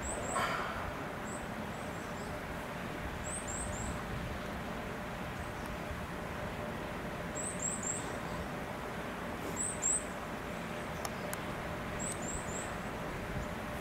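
Small birds chirping: short, high calls in quick runs of two or three, repeating every few seconds over a steady background hiss.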